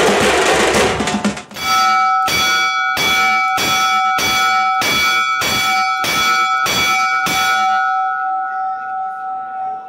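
Drumming and crowd noise break off about a second and a half in. Then a bell is struck about ten times in a steady rhythm, roughly one and a half strikes a second, and its ringing fades out near the end.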